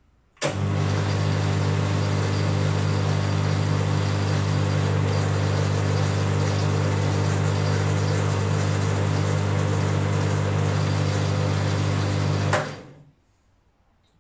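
Boxford AUD metal lathe, driven by a single-phase capacitor-start electric motor, switching on at a press of the start button and running steadily with its power feed engaged: a strong low hum with gear and belt noise over it. Near the end it is switched off with a click and winds down within half a second.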